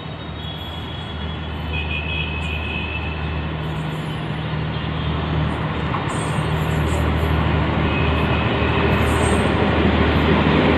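Express train approaching at speed through a station without stopping; its rumble with a low steady hum grows steadily louder as the locomotive nears.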